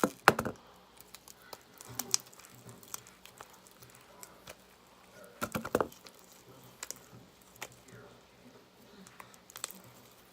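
Homemade glue slime being handled and pulled, giving scattered sticky clicks and pops, with a cluster of them at the start and another about five and a half seconds in.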